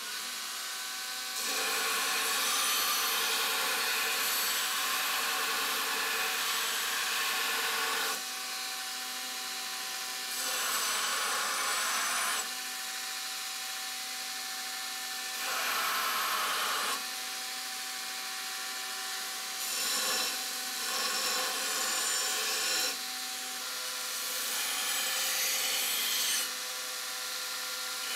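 Belt grinder running, with a forged 80CrV2 steel blade pressed against the belt in five passes of a few seconds each; the sound grows louder and harsher each time the steel is on the belt, with the first pass the longest.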